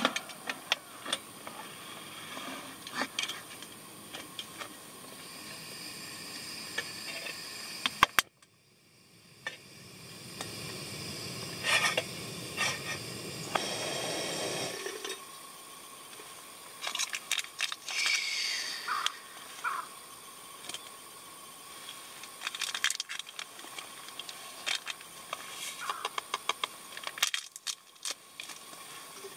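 SOTO ST-301 remote-canister gas stove burning under a kettle with a steady hiss, shut off at the valve about halfway through, when the hiss stops abruptly. Scattered clinks and taps of metal being handled around the stove and kettle.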